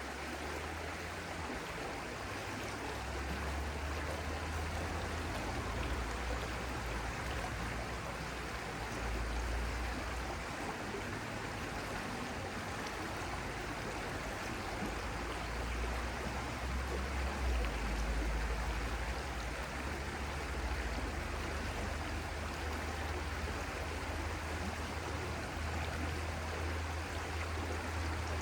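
Stream of water flowing steadily, with a low rumble underneath that swells and fades.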